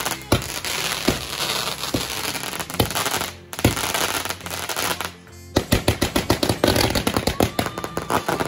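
A multi-shot firework cake firing: separate bangs of shots launching and bursting, then a rapid run of crackling reports in the second half.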